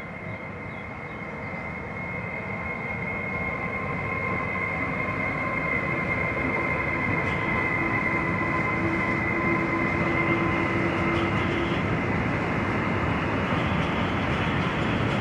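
Freight train approaching and passing close, its rumble growing steadily louder, with a steady high-pitched whine held over it and a lower tone for a few seconds in the middle.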